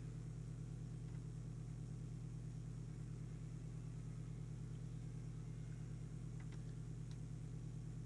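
Steady low electrical hum, mains hum around 100 Hz with overtones, from the radio test bench. There are a few faint ticks about six to seven seconds in.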